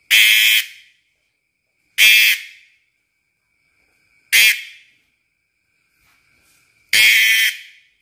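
Cicada on a hand giving four loud, harsh buzzing squawks, each about half a second and fading quickly, roughly every two seconds. This is the protest call typical of a cicada that is being held.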